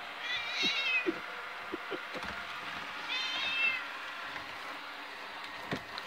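Domestic cat meowing twice, each a short, wavering high-pitched call, the second about three seconds in: the agitated cries of a cat confronting a robot vacuum. A robot vacuum's motor hums steadily underneath.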